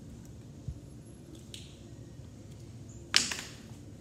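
Handling noise from slime being stirred in small plastic tubs, with a short scrape-like hiss, then one sharp click or snap about three seconds in, the loudest sound.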